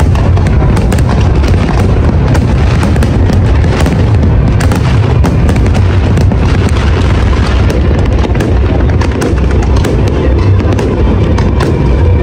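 Large fireworks display: many shells bursting in quick, continuous succession over a steady low rumble.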